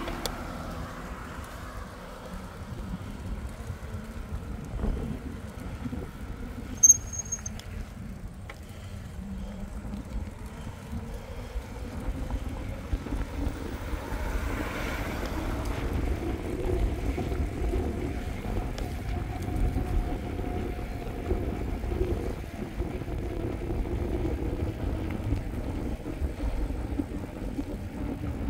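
Mountain bike ridden at cycling speed: knobby tyres rolling and wind on the microphone make a steady rumble, which grows louder in the second half. A short, sharp high beep comes about seven seconds in, and a passing vehicle swells and fades about halfway through.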